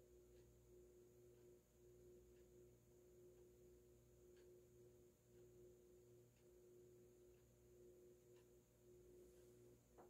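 Faint steady motor hum from a FASCO Heat-Cycler ceiling fan running at a low-medium setting on its solid-state speed control, with a light tick about once a second.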